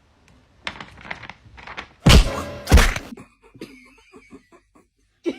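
Two heavy thuds about half a second apart, after a few lighter knocks.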